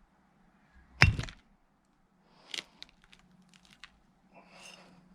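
A 330 kg clamp magnet snapping onto half of a cast-iron railway track chair with one loud, sharp metallic crack about a second in. A few lighter clicks and knocks follow.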